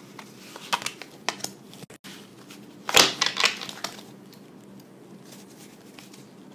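Tarot cards being shuffled and handled: a quick run of crisp snaps and crackles about a second in, then a louder burst of riffling about three seconds in, with softer ticks between.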